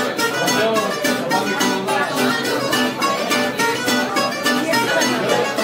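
Greek bouzouki picking a melody over acoustic guitar strumming a steady rhythm, an instrumental passage of a rebetiko song.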